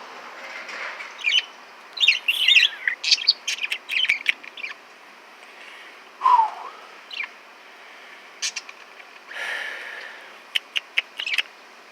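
Caged pet birds chirping in short, quick bursts, with one lower call midway and a rapid run of sharp clicks near the end.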